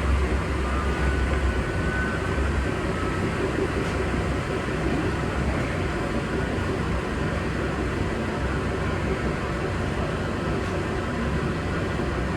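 Coin-laundry washing machine running: a steady low mechanical hum and rumble, heavier in the first couple of seconds.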